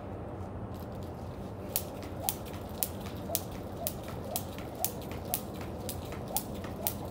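Jump rope slapping a concrete floor about twice a second in an even rhythm, starting nearly two seconds in, as someone skips.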